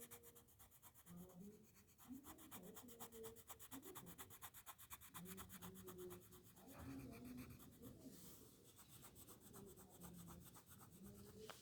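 Faint scratching of a colour pencil shading back and forth on a colouring-book page, with faint voices far in the background.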